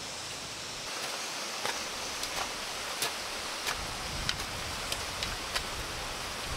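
Garden hoes chopping into dug soil and clods: an irregular series of sharp strikes over a steady outdoor hiss.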